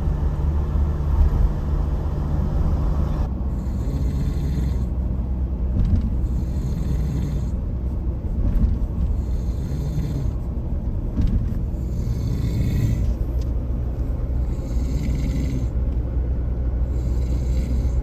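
Steady low rumble of a vehicle's engine and road noise heard from inside the cabin while driving, with a rushing hiss that swells and fades every second or two.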